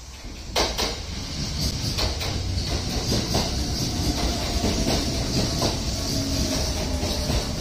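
A Kintetsu express electric train pulls into the platform and slows alongside. It gets suddenly louder about half a second in as the front of the train draws level, then runs on as a steady rumble, with the wheels clicking over rail joints and a faint whine slowly falling in pitch as it decelerates.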